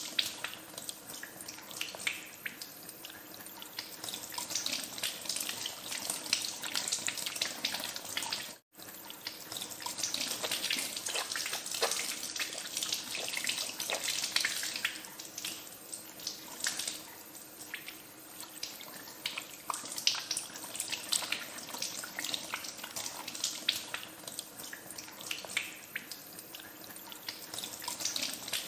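Tap water running into a sink with hands being washed under it: a steady rush of water broken by many small irregular splashes. The sound cuts out for an instant about nine seconds in, then carries on.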